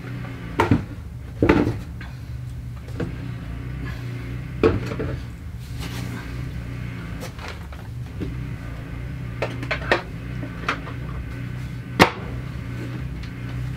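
Scattered knocks and clicks as items are set down and shifted inside a lower kitchen cabinet, with one sharper click near the end, over a steady low hum.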